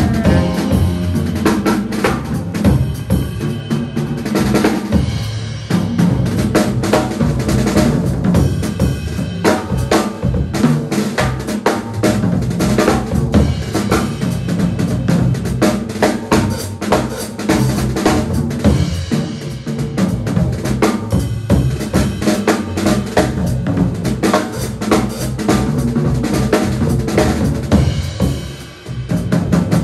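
Live small-group jazz, the Gretsch drum kit loudest with busy snare, bass drum and cymbal work over sustained low notes, briefly dropping in level near the end.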